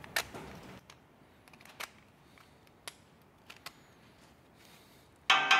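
A few sparse, faint clicks and taps of small metal parts being handled: the pieces of a broken filter magnet in the fingers. Near the end, music with a quick, even beat comes in.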